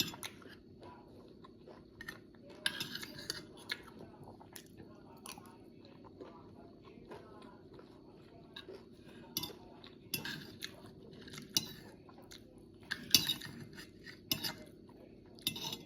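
Eating sounds: utensils clinking and scraping on a plate, and chewing of bitter melon with rice, in irregular short bursts with some louder clinks.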